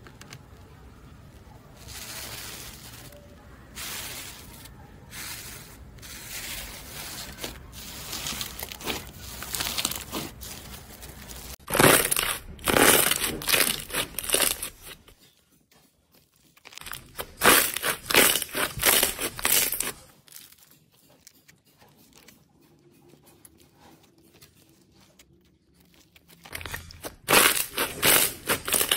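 Slime being handled for ASMR: sticky, crackling squelches as hands stretch and press a glossy clear slime, in loud bouts with quiet gaps between, from about twelve seconds in. Before that comes a softer, patchier crackle from a green foamy slime.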